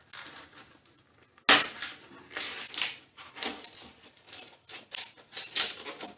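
Cured epoxy resin strip being prised and peeled free of its plastic mold strips: a run of irregular sharp cracks and snaps, the loudest about a second and a half in.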